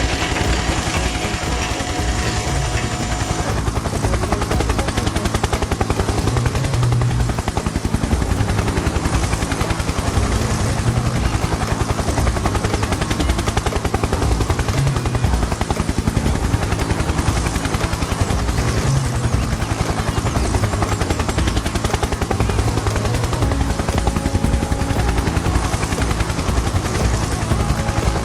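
A heavy vehicle engine sound effect running with a rapid, steady low chugging.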